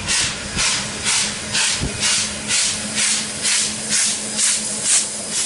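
NSWGR 32-class 4-6-0 steam locomotive 3265 chuffing as it passes, its exhaust beats coming evenly at about two a second, over a steady low hum.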